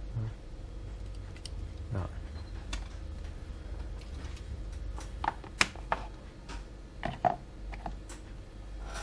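Handling noise: a few scattered light clicks and taps as a battery-powered soldering iron and solder wire are handled, most of them bunched together in the second half, over a steady low hum.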